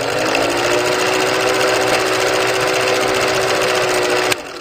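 Film-projector running sound effect: a fast, even mechanical clatter over a steady hum whose pitch rises slightly in the first second, cutting off suddenly near the end.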